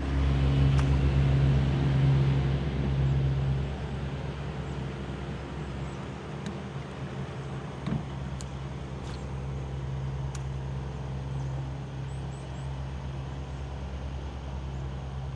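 Small boat motor running steadily with a low hum, louder for the first few seconds and then eased back to a lower, even level. A few faint ticks and a soft thump come about eight seconds in.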